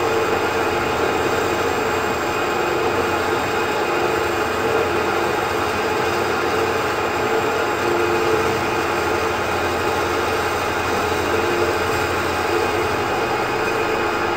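Bandsaw running steadily as its blade cuts through an oak board, a constant motor and blade noise with a steady hum.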